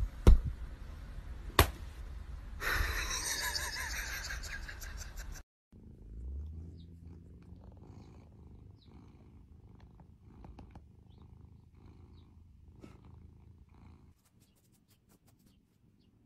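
A domestic cat purring, a faint low rumble with soft pulses that fades out about two seconds before the end. Before it come a few sharp knocks and about three seconds of louder, harsh noise that stops abruptly.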